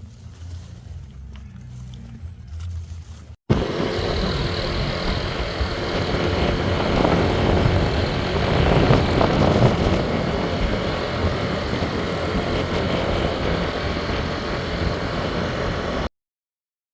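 Loud, steady road and wind noise of a moving vehicle, starting abruptly at a cut about three and a half seconds in after a faint low rumble, and cutting off suddenly near the end.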